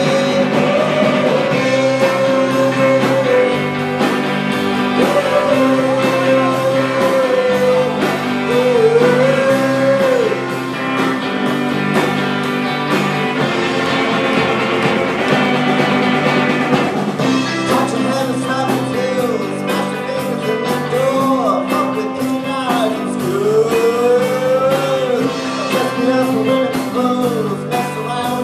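Live rock band playing: a man singing over electric guitars and a drum kit. The cymbals strike more often in the second half.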